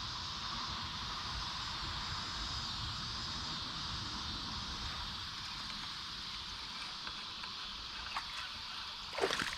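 Steady insect chorus, like crickets, with a low, uneven rumble underneath.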